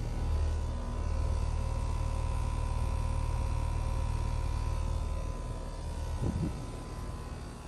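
A Trane XR14 central air-conditioner condensing unit running, with a steady low hum and faint steady tones from its compressor and fan. The low hum eases off about five seconds in.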